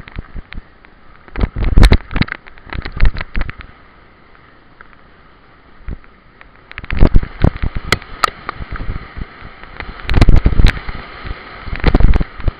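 Mountain bike rattling and jolting down a rough dirt trail, the mounted camera knocking in three bursts of hard bumps with quieter rolling in between.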